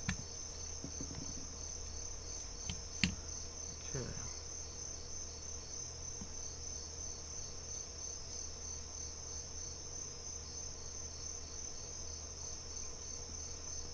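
Crickets chirping steadily in the background, with one sharp click about three seconds in.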